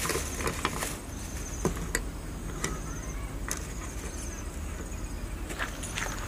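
Insects chirping in short, high, pulsing trills that come back every second or so, with scattered light clicks and knocks.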